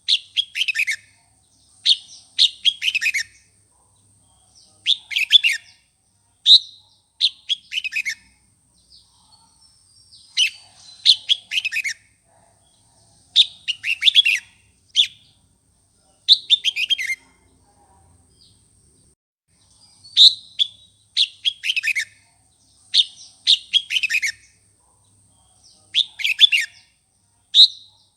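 Red-whiskered bulbul singing its loud, lively song in short phrases of quick falling whistled notes, one phrase every two to three seconds.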